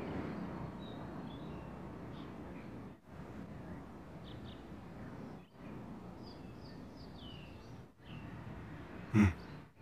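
Quiet outdoor ambience: a steady soft wash of background noise with faint, scattered bird chirps, dropping out briefly three times. A short louder sound comes just before the end.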